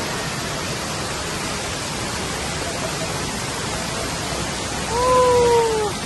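Steady rushing of a waterfall's falling water. About five seconds in, a held tone, falling slightly in pitch, sounds over it for about a second.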